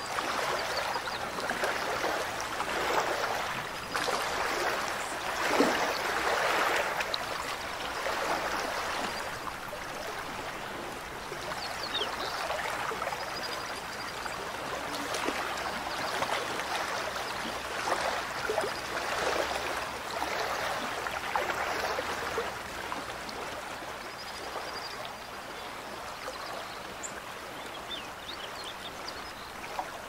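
Mountain stream running: a steady rush of flowing water with gurgles, swelling and easing in strength.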